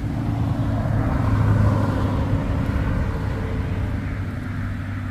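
A passing vehicle engine: a low drone that swells to its loudest about a second and a half in, then slowly fades.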